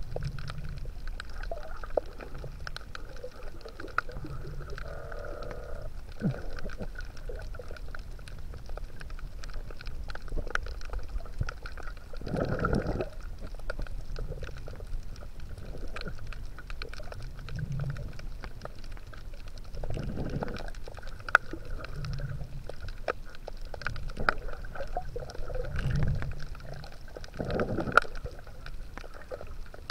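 Underwater sound picked up by a submerged action camera: muffled water movement and gurgling with a steady low rumble and scattered clicks. Several louder surges of water noise come and go.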